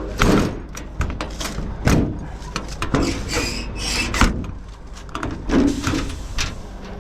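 Rummaging through a truck's storage compartments: a series of knocks and clunks with rubbing and shuffling in between as compartment doors and their contents are moved.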